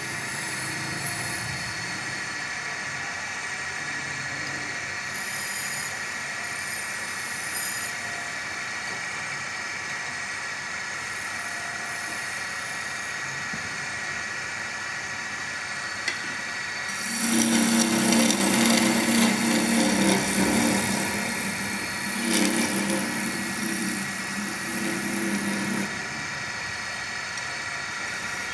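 Wood lathe running steadily while a hand turning chisel cuts the spinning wooden chair leg. The cut gets louder and scrapier for about four seconds past the middle, then again for a few seconds after a short break.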